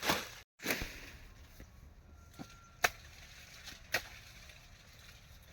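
Four short, sharp chopping knocks and snaps, spaced irregularly over a few seconds, as of crop harvesting by hand. Just after the first there is a brief cut to silence.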